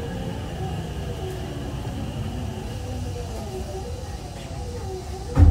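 Hankyu 9000-series train running, its Toshiba IGBT VVVF inverter whining as a few faint tones that slowly fall in pitch over the running rumble as the train slows towards a station stop. A sudden loud thump comes right at the end.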